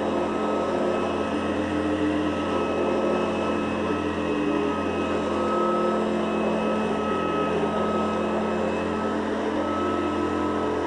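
Hoover Guardsman commercial upright vacuum cleaner running steadily while vacuuming carpet, its brushed motor giving a steady high whine over a low hum.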